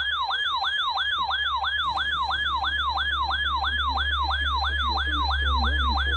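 Electronic siren-style alert tone yelping up and down in pitch about three times a second: the attention signal that introduces a broadcast emergency weather warning.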